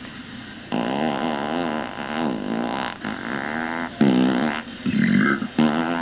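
Fake fart sounds from a Pooter fart-noise toy: a long, wavering, pitched fart starting about a second in, followed by several shorter ones.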